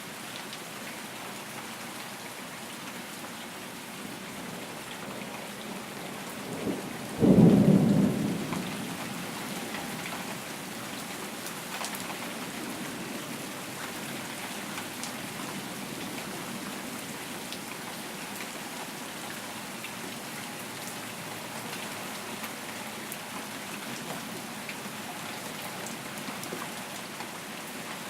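Steady rain falling, with a single thunderclap about seven seconds in that rumbles away over a couple of seconds.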